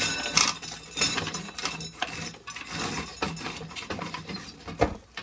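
Dry corn rattling and clattering as it is handled, a dense run of irregular clicks and rattles with a sharper knock near the end.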